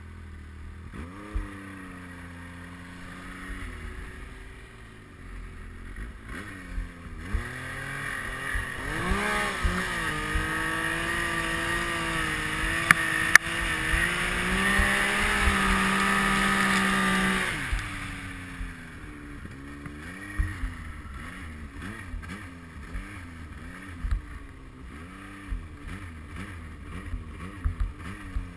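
Yamaha Nytro snowmobile's four-stroke three-cylinder engine pulling through powder. The throttle opens about seven seconds in and is held high, at its loudest, for several seconds. It eases off near eighteen seconds into a lower, rising-and-falling run, with occasional short knocks.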